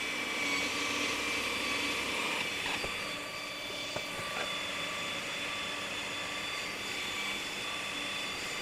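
Electric motor running steadily with a high whine, with a few small clicks near the middle.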